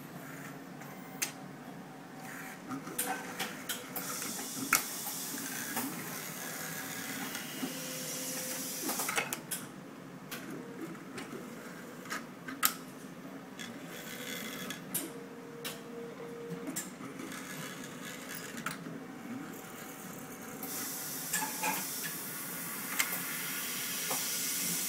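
Picasso DVD printers running: a steady mechanical hum with scattered clicks and knocks, and stretches of high hissing whir a few seconds in and again near the end.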